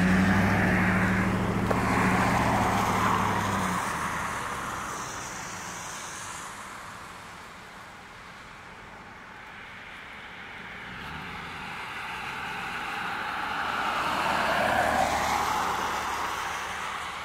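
Vehicles passing on a wet road. Engine hum and tyre hiss are loud at first and fade out by about four seconds in. Then another vehicle approaches, passes about fifteen seconds in with tyres hissing on the wet pavement, and fades away.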